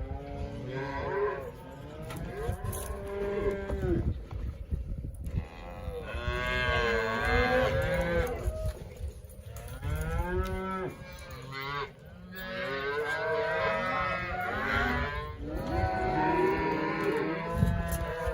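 A herd of cattle mooing and bawling, many calls overlapping one another with hardly a pause.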